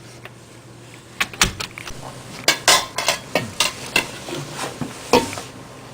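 Door blocked by snow being pushed and rattled: a quick, irregular run of sharp metallic clanks and knocks from the handle and latch.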